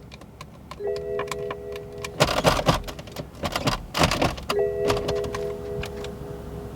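2012 BMW 650i dashboard warning chime sounding twice as a held multi-note tone, over rapid, even ticking clicks, with a couple of loud knocks and rustles between the chimes. The car shows low coolant and refuses to start.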